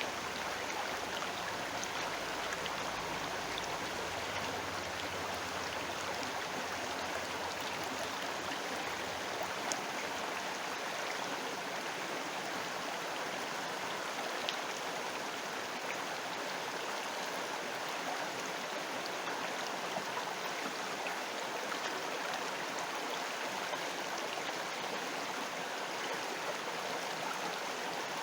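River water flowing steadily, an even rushing with a couple of brief sharper splashes about ten and fifteen seconds in.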